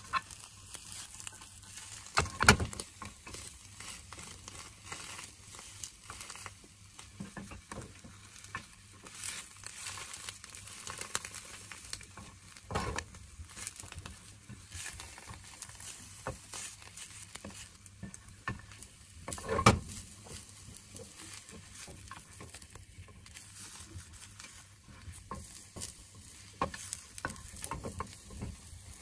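Spatula scraping and pressing a rolled egg omelette in a square tamagoyaki pan, over a faint sizzle of the egg cooking. Three louder knocks stand out: about two and a half seconds in, near the middle, and about two-thirds of the way through.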